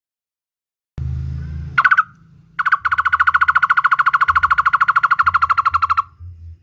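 Barbet calling: a short burst of rapid notes, then a long, fast, even string of the same notes for about three and a half seconds, over a low hum.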